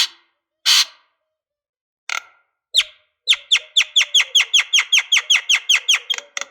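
Lovebird calling: a few single sharp chirps, then a long, fast, even chattering trill of about twenty short falling notes, some six or seven a second, the long 'ngekek' song used to stir other lovebirds into calling.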